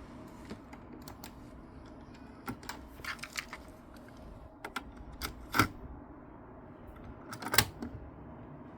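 Mechanical clicks from a Technics RS-B28R cassette deck being operated: scattered light clicks, a quick run of clicks about three seconds in, and two louder clunks, one past the middle and one near the end.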